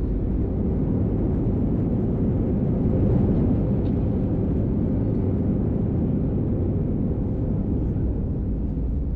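Steady roar of jet engines and rushing air heard inside the cabin of an Airbus A320 airliner, swelling slightly about three seconds in.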